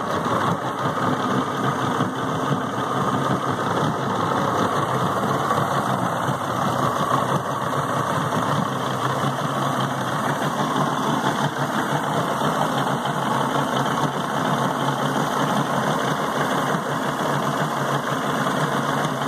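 Yamaha outboard engine idling steadily in a flush trough, its lower unit churning foamy water. It is pumping a Dawn-and-vinegar mix through its cooling passages to clean out corrosion.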